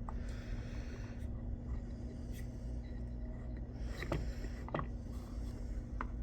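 Knife blade drawn across a sharpening stone in a few short, light scraping strokes, with a few small clicks: deburring strokes on a steel edge whose burr will not come off.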